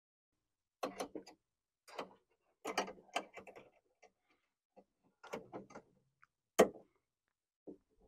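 Metal latch rods and plastic rod clips on a Honda Ridgeline tailgate latch mechanism clicking and rattling as a short rod is worked into place by hand. The clicks come in scattered little clusters, with one sharper, louder click about two-thirds of the way through.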